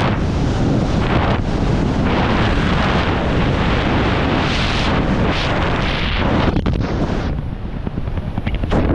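Loud rushing air of a wingsuit flight buffeting the camera microphone, surging louder and softer, with a few brief crackles about six and a half seconds in.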